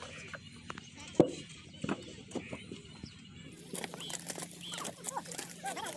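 Fired clay bricks knocking against each other as they are handled and stacked at a donkey cart, with one sharp clack about a second in. Then the sound changes to hoes chopping into wet brick clay, with voices in the background.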